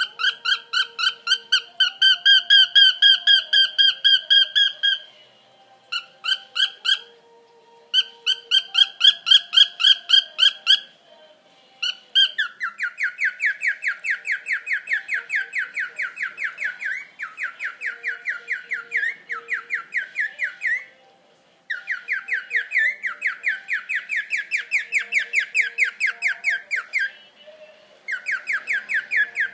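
Cockatiel singing: long runs of rapid, repeated whistled notes, about five a second, in phrases broken by short pauses. From about twelve seconds in, the notes sit lower.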